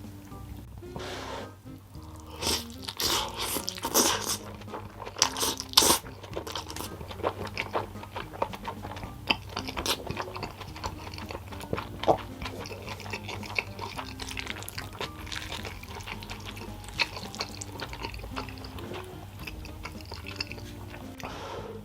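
Irregular crisp crunching sounds over soft background music.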